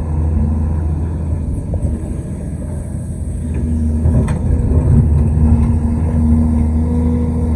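Big excavator's diesel engine running under load with a steady low drone. It works harder and grows louder about halfway through, and there is a single knock a little past the middle.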